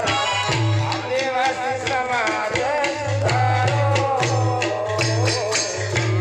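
A man singing a folk song with drum and jingling hand percussion. The drum beats steadily throughout.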